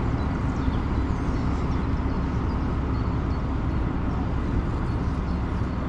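Steady low engine rumble, even throughout.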